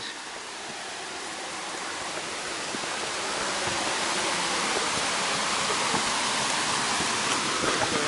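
Small waterfall's rushing water, a steady hiss that grows gradually louder over the first few seconds.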